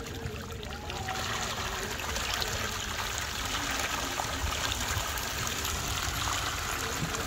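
Water splashing and churning as a dense mass of fish thrashes at the surface: a continuous rush of many small splashes that grows louder about a second in.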